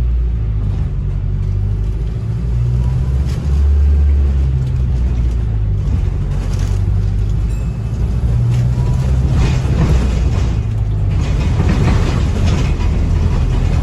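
Low engine and drivetrain rumble of a London double-decker bus on the move, heard from inside, its steady tones stepping up and down in pitch as it pulls away and slows. A broad rushing noise swells about nine seconds in and fades about four seconds later.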